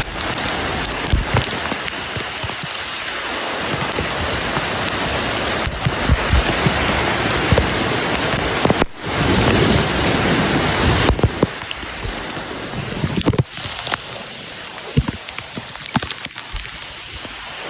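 Rushing river water, a steady loud splashing and hissing with scattered short knocks, its loudness shifting abruptly a few times.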